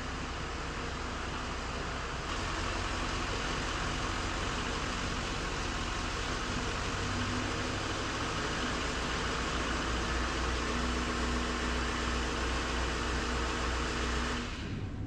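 GMC 3500 HD's Duramax turbo-diesel V8 running steadily as the truck pulls into the shop and idles, then shut off near the end.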